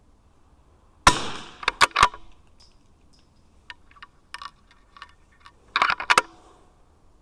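A .22 LR single-shot rifle fires once about a second in, followed by quick metallic clicks of the bolt being opened. Light clicks follow as a fresh round is loaded, then a cluster of louder clicks near the end as the bolt is closed.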